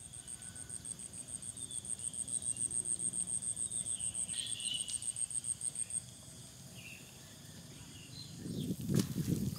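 An insect calling: a high, even pulsed trill of about eight pulses a second that stops about six seconds in, with a few faint bird chirps. Near the end comes a low rustle with a sharp click.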